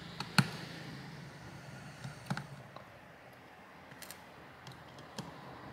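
Small sharp clicks and taps of a precision screwdriver working the tiny screws and metal frame of an opened phone. The loudest click comes about half a second in, with a pair a little after two seconds and a few fainter ticks later.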